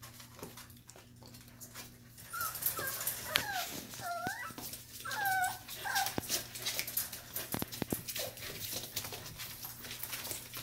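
Norwegian Buhund puppies whimpering, several short high cries rising and falling in pitch a few seconds in, with many light clicks and a couple of knocks.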